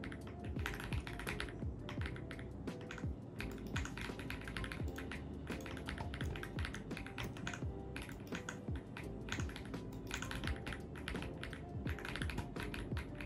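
Continuous fast typing on an AULA F75 mechanical keyboard: a dense stream of keystroke clicks, over background music.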